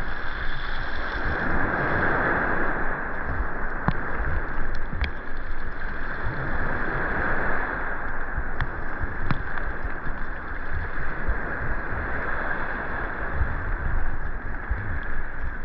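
Sea waves washing onto the beach, the surf swelling and ebbing about every five seconds, with wind buffeting the microphone.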